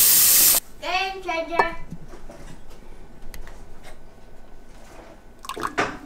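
Espresso machine steam wand letting out a short, loud hiss of steam that cuts off suddenly about half a second in: the wand being purged after frothing milk. A brief clatter near the end.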